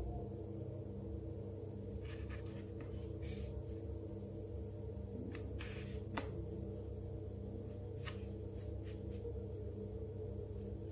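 Soft rustles and light taps of cornmeal-dredged whiting being picked from a bowl of meal and laid in a non-stick fish pan, over a steady low hum with several tones.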